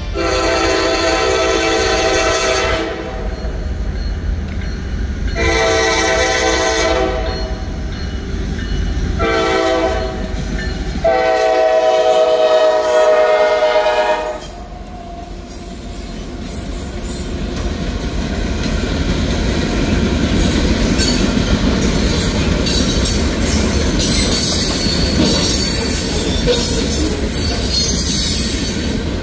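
A CSX freight locomotive's air horn sounds the grade-crossing signal: two long blasts, a short one, and a final long one. The locomotives and then the freight cars run past at speed, with steel wheels running on the rails.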